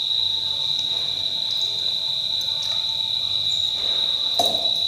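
A continuous high-pitched insect trill, holding steady throughout, with one light knock near the end.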